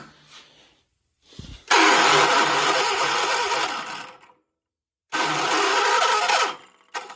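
A 1976 John Deere 300 garden tractor's electric starter cranking the engine in two attempts of about two and a half seconds and one and a half seconds. Each burst starts and stops abruptly, and the engine does not catch: a hard start, with the starter binding.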